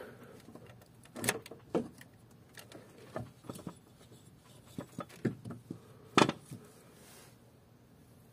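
Scattered light clicks and knocks of small objects being handled, with the loudest knock about six seconds in.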